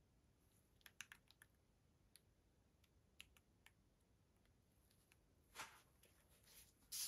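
Faint, scattered clicks and taps from gloved hands tilting a stretched canvas on its stand, with a short rustle about five and a half seconds in and a sharper knock near the end.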